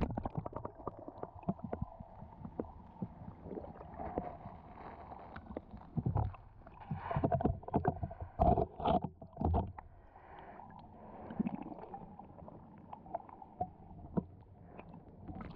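Shallow seawater splashing and sloshing in irregular bursts, densest midway.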